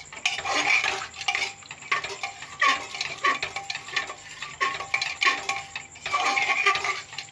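A metal slotted spatula stirring watery chickpea-and-potato curry in an aluminium pressure cooker, with irregular scrapes and clinks of metal against the pot.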